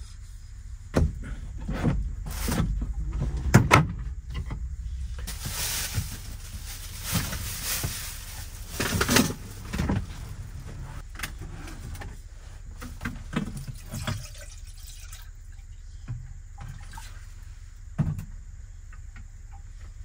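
Cookware knocking and clattering, a lid and pots set down, then several seconds of water running or pouring, with a few more knocks near the end.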